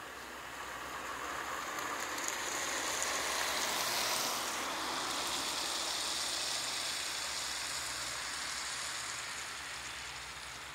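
A vehicle going past, a broad rushing noise that swells to its loudest about four seconds in and slowly fades away.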